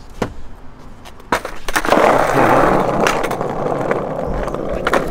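Skateboard wheels rolling over rough asphalt: a steady rumble begins about two seconds in, after a couple of sharp clacks from the board.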